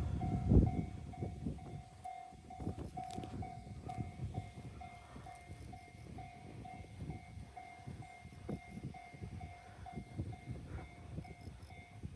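E235-series electric train passing at speed, its wheels clattering and rumbling over the track. The sound is loudest at the start and fades as the train moves away. A bell dings about three times a second throughout.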